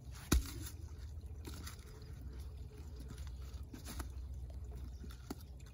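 Stones being set and stepped on in a shallow creek: a sharp clack of rock on rock about a third of a second in, then a few lighter knocks, over a steady low rumble.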